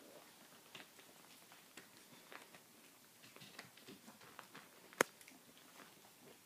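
Faint, scattered scuffling and small scratches as two-week-old Briard puppies crawl about on towels and the box floor, with one sharp click about three-quarters of the way through.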